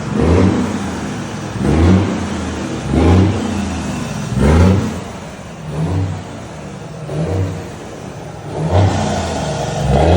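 Volvo FH 540 truck's 13-litre straight-six diesel revved in repeated quick blips through an aftermarket exhaust, about eight rises and falls of engine pitch, one every second and a half or so, with the deep exhaust rumble between them.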